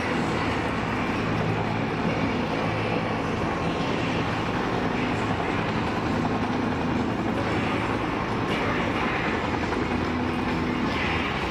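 Two Bell UH-1H Huey helicopters flying past in formation, their rotors and single turboshaft engines running with a steady, level sound.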